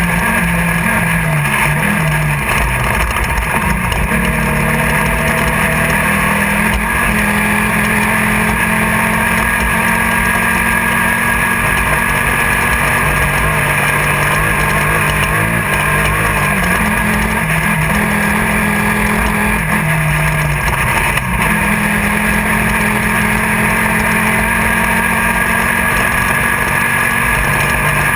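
Engine of a Class 1600 off-road race car, an air-cooled VW-based 1600 cc flat-four, running hard, heard from inside the car. Its note steps up and down several times with throttle and shifts over a loud, constant rush of noise.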